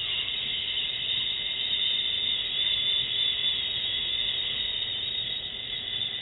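A long, steady exhaled "shhh" hiss: the liver sound of the Taoist Six Healing Sounds, held evenly through one slow breath.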